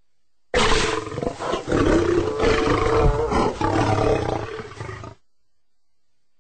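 A lion roaring: one loud call of about four and a half seconds that starts suddenly and cuts off abruptly.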